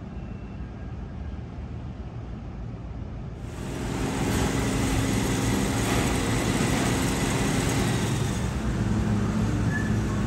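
Utsunomiya Light Line electric tram running along its track: a steady rolling noise with a motor hum, louder from about a third of the way in, over a low outdoor rumble.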